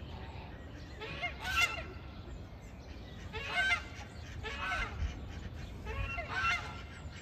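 A series of short pitched animal calls, about five of them spaced a second or so apart, each bending up and down in pitch, over a low steady rumble.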